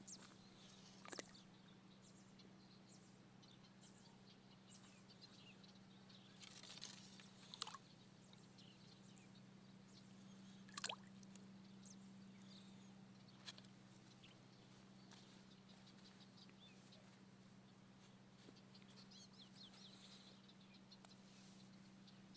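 Near silence: a faint steady low hum with a few scattered sharp clicks and faint distant chirps.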